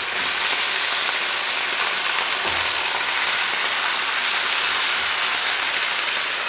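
Steady sizzling from a frying pan as raw chicken drumsticks are added to sautéed garlic and onion.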